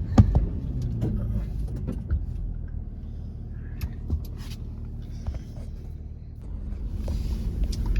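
Toyota 4Runner crawling a rough off-road trail, heard from inside the cabin: a steady low rumble broken by scattered knocks and rattles as it lurches over bumps, the sharpest just after the start. A hissing rush builds about six and a half seconds in.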